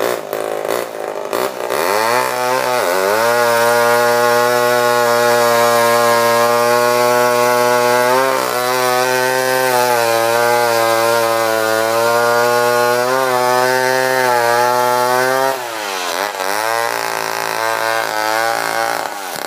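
Homelite Super 66 two-stroke chainsaw cutting through a log at full throttle. The engine note holds high and steady for about twelve seconds, then drops as the throttle is let off about fifteen seconds in, and runs on at a lower, uneven pitch.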